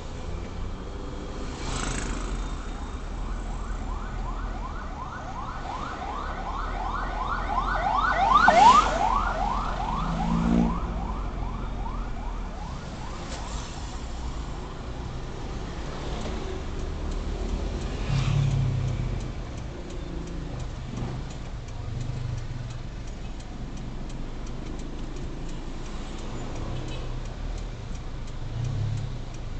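Siren yelping in fast repeated sweeps of about three a second. It swells to its loudest around nine seconds in and fades out by about twelve seconds, over a car's low engine and road rumble. Later a steady fast ticking joins.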